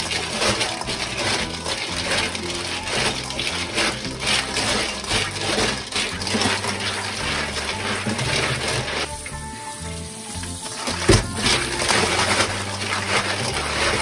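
Live cockle shells clattering against one another and a stainless steel bowl as they are rubbed by hand with coarse salt and rinsed under running tap water, over background music. The clicking thins out for a moment past the middle, then a single sharp knock follows.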